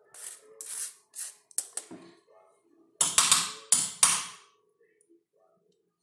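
Raw potato rasped over a flat stainless-steel hand grater in quick strokes, then about three louder sudden clattering strokes of the grater against the steel plate around three to four seconds in, as the grating finishes.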